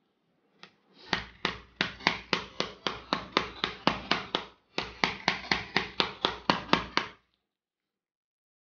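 A mallet rapidly tapping the plastic case of a laptop power adapter, about four strikes a second in two runs with a short pause in between, to crack the glued seam of the case open.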